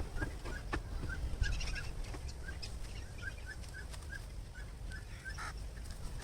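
Chickens clucking, a short call repeated about twice a second, with a few sharp clicks and a low rumble underneath.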